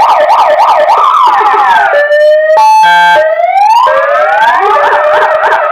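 Loud 50-watt electronic siren through its horn speaker, cycling through its tone sequence: a fast yelp, a slow falling wail, about half a second of a buzzing horn blast in the middle, a slow rising wail, then the fast yelp again.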